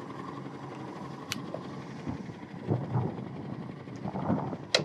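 Steady low rumble of a small fishing boat at sea, with a sharp click about a second in, a few soft knocks, and a louder sharp click near the end.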